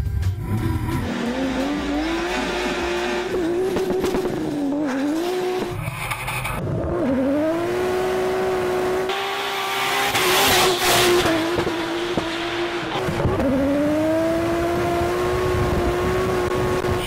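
Drift car's engine at high revs, heard from inside the cockpit, its pitch dropping and climbing back several times as the driver shifts and lifts. Tire squeal hisses over it, loudest about ten seconds in.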